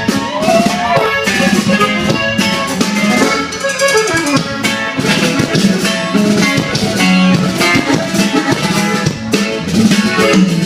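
Instrumental break of a Latin regional song: guitar with drums and a steady beat, no singing.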